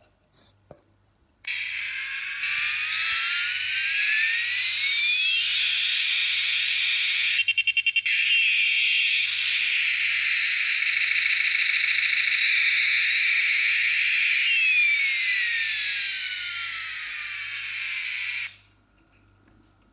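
Aeroplane keychain's built-in sound effect playing through its tiny speaker, a jet-engine noise. It rises in pitch as it spools up, runs as a steady high hiss with a brief stutter of rapid pulses partway through, then falls in pitch and cuts off suddenly. The sound is thin and has no low end.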